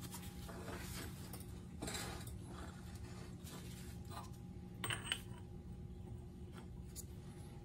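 Light metallic clinks and scrapes as a steel differential case is shifted on a hydraulic press bed and a large socket is set onto its shaft, with one sharper metal clink about five seconds in. A steady low hum runs underneath.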